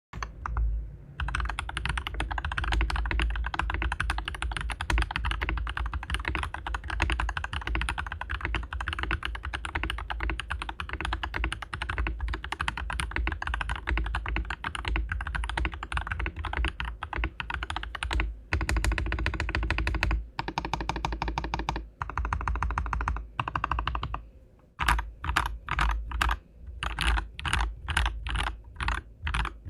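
AWS68 mechanical keyboard with "Glorious Sojus" franken switches (GHP stems, Boba tops, Kiwi bottoms, 78 g springs) and PBT keycaps being typed on: fast continuous typing, then several short runs of very rapid, even keystrokes, and near the end separate single keystrokes about two a second.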